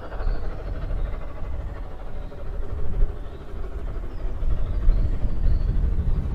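Narrow-gauge steam train of the Rasender Roland approaching in the distance: a low, uneven rumble.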